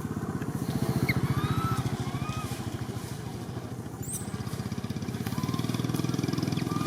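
A small engine running steadily with a rapid, even pulse, while short high rising chirps sound now and then over it.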